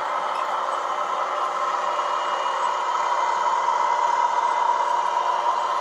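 Steady running noise of H0e model trains moving on the layout, an even mechanical hum with no sharp knocks.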